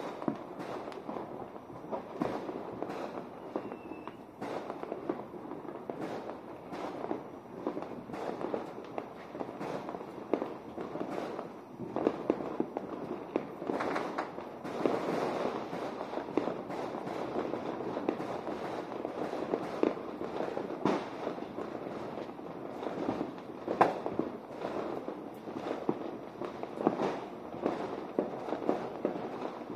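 Many fireworks and firecrackers going off at once all around, a continuous crackle and pop with frequent sharper bangs that sound like gunshots, the loudest about four-fifths of the way through. Heard from inside a bedroom.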